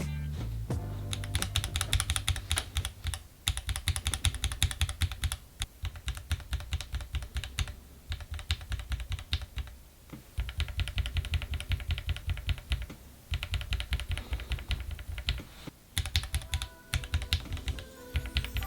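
Fast typing on a mechanical keyboard with linear switches, in runs of rapid keystrokes broken by short pauses, played as a sound test of how the switches sound.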